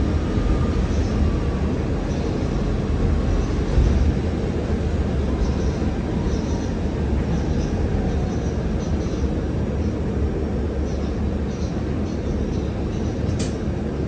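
Interior of a KAMAZ-6282 electric bus on the move: steady low road rumble and tyre hiss on a wet road. A faint steady tone fades in the first second or two, and there is a single sharp click near the end.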